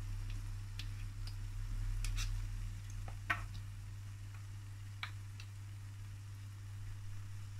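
Apple fritters frying in sunflower oil in a deep frying pan: scattered small pops and crackles from the hot oil, with one sharper click about three seconds in. A steady low hum runs underneath.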